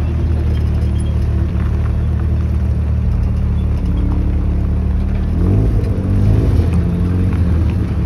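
Car engines running with a low, steady rumble as cars roll past slowly. A little past halfway, one engine briefly revs up, rising in pitch, then settles.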